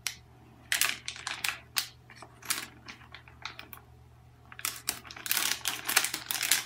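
Foil blind-bag packet crinkling and crackling as it is handled and opened, in irregular sharp crackles that grow denser in the last two seconds.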